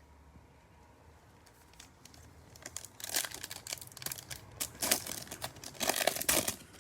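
A foil trading-card pack wrapper being torn open and crinkled in the hands, a crackling that starts about two and a half seconds in and goes on in bursts for a few seconds.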